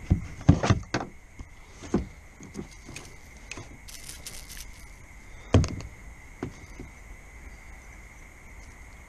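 Knocks and thumps against the kayak hull as the caught bass and a fish-measuring board are handled, loudest about half a second in and again about five and a half seconds in, with a short scraping rustle about four seconds in.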